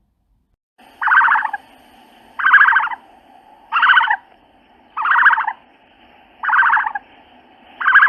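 Recorded animal call played as the ostrich's sound: six short, rasping calls, evenly spaced about every 1.3 seconds, over a steady hiss from the recording.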